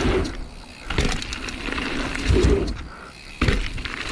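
Mountain bike rolling fast over a dirt jump line, with tyre noise and wind rushing over the microphone. The noise drops away briefly about half a second in as the bike leaves a wooden kicker ramp, and comes back with a landing thud about a second in. Another sudden thud follows near the end.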